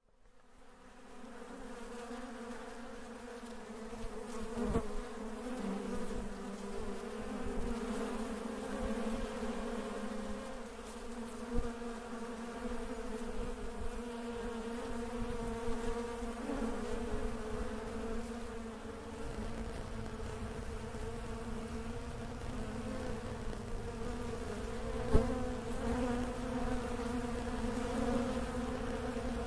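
Bees buzzing in a steady drone inside a corbelled stone dome, fading in over the first second or two. A few short knocks break in, the sharpest near the end.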